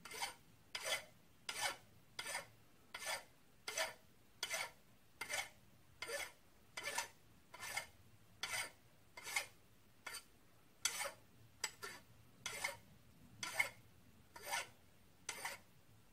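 Hand file drawn in steady forward strokes across a small metal part, about twenty even rasping strokes a little more than one a second.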